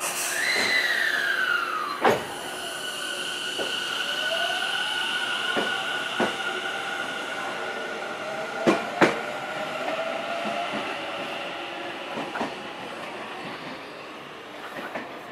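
Tobu Railway electric commuter train pulling out of the station. Its motors whine, falling in pitch at first, then rising as it gathers speed. Sharp clicks of the wheels over rail joints come at about two seconds and twice close together about halfway, and the sound fades as the train leaves.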